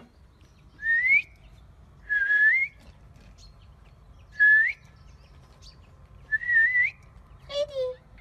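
Whistling: short clear notes, each rising in pitch, repeated about every two seconds, with a brief lower falling call near the end.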